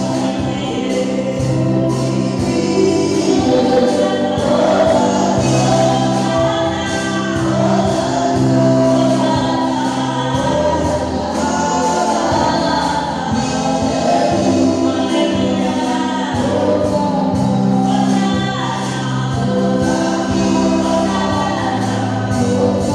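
Gospel choir singing with instrumental accompaniment, over held bass notes that change every second or two.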